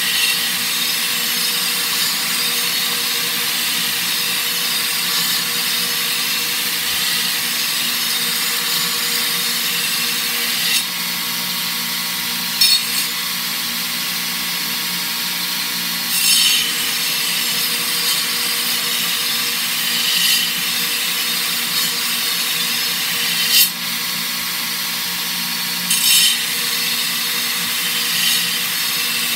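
Shop-made belt sander running, its abrasive belt grinding the cutting edge of a steel lawnmower blade. A steady grinding hiss over the motor's hum, with a few brief louder surges.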